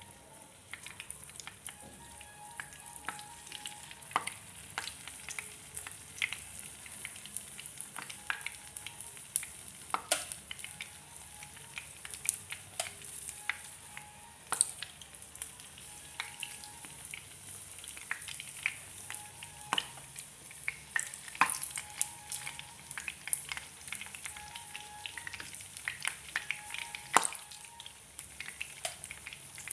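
Battered okra frying in hot oil: a steady sizzle with frequent sharp crackles and pops throughout.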